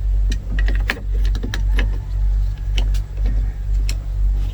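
Light clicks and knocks of door trim parts and tools being handled during a truck window regulator refit, several spread through the stretch. Under them runs a loud, steady low rumble that swells and eases every second or so.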